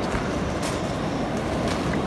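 Steady wind noise on the microphone, a low even rumble with a few faint crackles.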